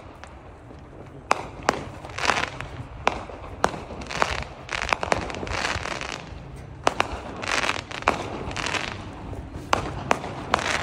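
Aerial fireworks going off overhead: irregular sharp bangs and pops all through, with short hissing stretches between them and a cluster of bangs near the end.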